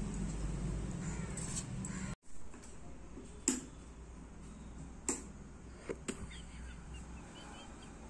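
Budgerigar giving a few short, harsh single calls about a second apart, with faint chirping between them, over a steady low background hum in the first two seconds.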